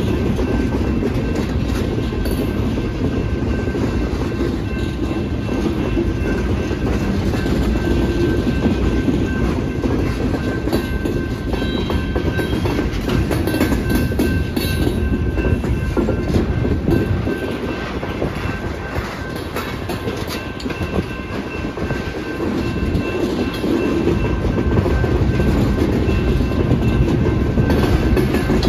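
Loaded rock hopper cars of a freight train rolling past at a grade crossing: a steady heavy rumble with wheels clacking over the rail joints, and a faint thin high tone above it.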